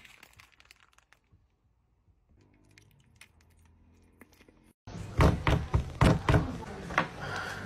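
Faint handling sounds, then about five seconds in a run of loud thumps a fraction of a second apart, a fork and knife held in fists being banged on a table.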